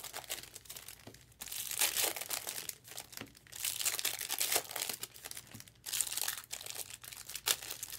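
Foil wrappers of Bowman Sapphire baseball card packs crinkling in several bursts as the packs are handled.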